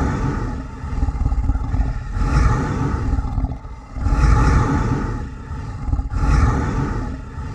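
Dinosaur roar sound effects, one after another: deep rumbling roars that swell and fade about every two seconds.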